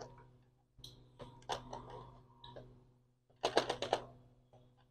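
Faint clusters of small clicks and taps from a screwdriver working screws on a laptop's plastic case, with a quicker run of clicks near the end.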